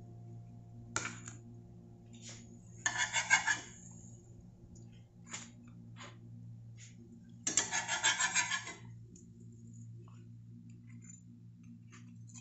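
A slotted metal spatula clattering against a plastic plate in two short bursts of quick rattling strokes, over a steady low hum.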